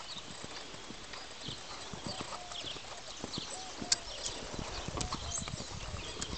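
Hoofbeats of a cantering saddle horse on a sand arena: a rhythmic run of dull thuds, with one sharp click about four seconds in.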